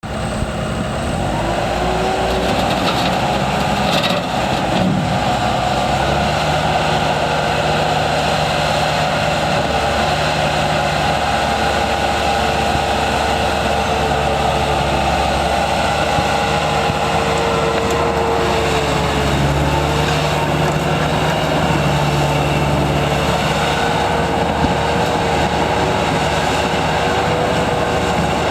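Bobcat 864 skid steer loader's diesel engine running steadily, with a steady whine over it and its low note shifting a few times.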